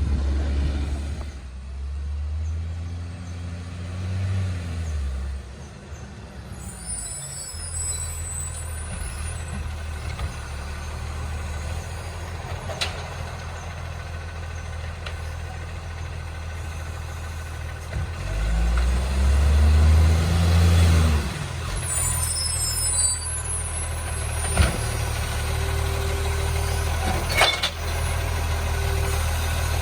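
Diesel engine of a recycling garbage truck running, revving up and back down twice, with short bursts of air hiss from its brakes or pneumatics and a few sharp clanks.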